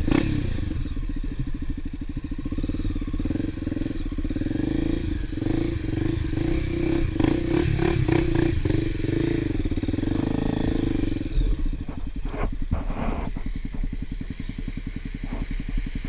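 Single-cylinder dual-sport motorcycle engine running at low speed as the bike rides through a shallow muddy stream crossing, with water splashing around it.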